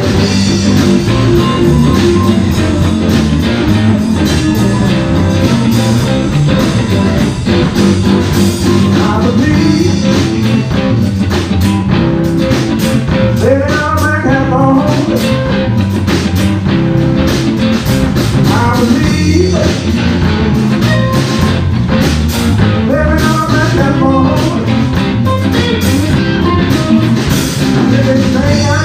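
Live blues band playing loudly: electric guitars, bass guitar and drum kit, with a voice singing at moments.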